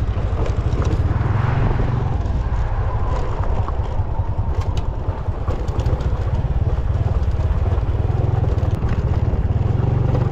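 Small motorcycle engine running steadily, a low pulsing rumble.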